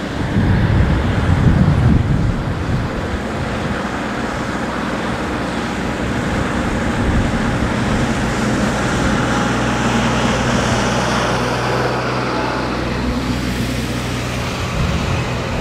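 Wind buffeting the microphone, gustiest about a second or two in, over a steady low rumble of distant engines.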